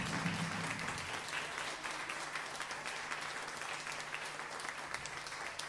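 Audience applauding with many quick claps, right as the band's last note stops at the very start.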